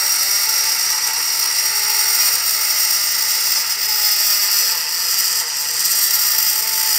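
Small handheld pen-style rotary engraving drill running with a steady high-pitched whine as its bit cuts a floral design into an alto saxophone's bell.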